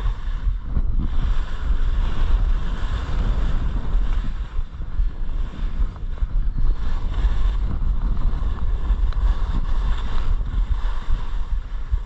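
Wind buffeting the microphone of a skier descending a steep run, a low rumble under the hiss of skis sliding and scraping on the snow, swelling and easing with the turns.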